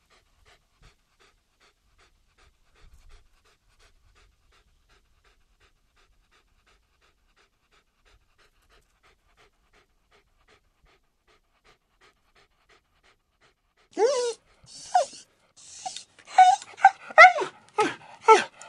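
A dog panting quickly and faintly. About fourteen seconds in, a puppy starts whining and yelping, a string of loud, high cries that slide up and down in pitch.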